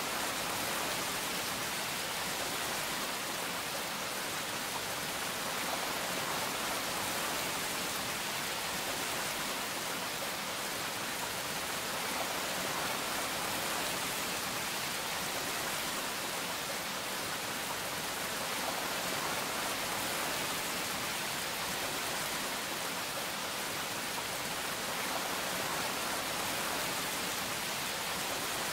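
A steady, even hiss with nothing else standing out: no motor whine, knocks or voices.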